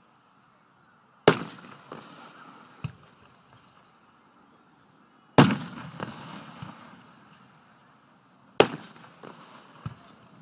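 Aerial fireworks going off: three loud booms about three to four seconds apart, each trailing off in a rolling echo, with a smaller sharp bang after each one.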